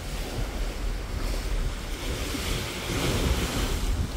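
Wind buffeting the microphone over the rush of sea water below a moving cruise ship; the hiss of the water swells a couple of seconds in.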